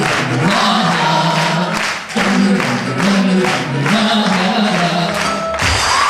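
Live country band music with held sung notes, the song winding up near the end.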